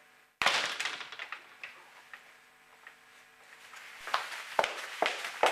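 Quiet room tone, opened by a sudden short noise about half a second in. Near the end come footsteps clicking on a hard floor, about two steps a second.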